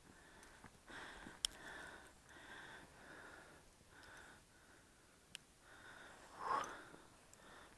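Faint handling noise from a paraglider's risers and harness: a soft rustle about twice a second, two sharp clicks, and a louder rustle near the end.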